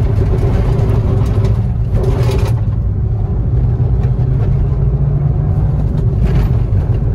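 Maruti Swift's 1.2-litre four-cylinder petrol engine pulling hard under acceleration, heard from inside the cabin as a loud, steady low drone mixed with road noise.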